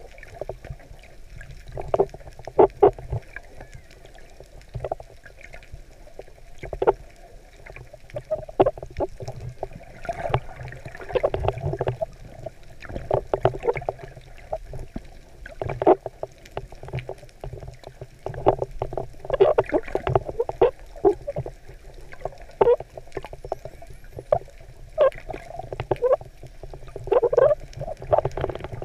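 Muffled underwater sound through a GoPro's waterproof housing: irregular gurgles and knocks of water moving against the housing as the snorkeler swims, over a low rumble.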